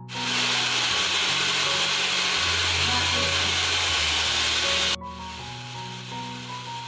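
Handheld hair dryer blowing a steady, loud rush of air that cuts off sharply about five seconds in. Soft background music plays under it.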